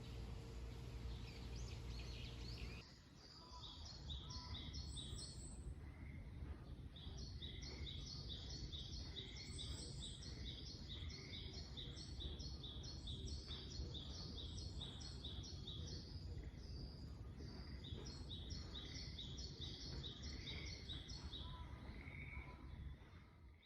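Birds singing in long runs of quick, repeated high chirps with occasional lower single notes, over a steady low rumble. For the first few seconds there is only a steady low hum with a faint tone, cut off abruptly before the birdsong starts.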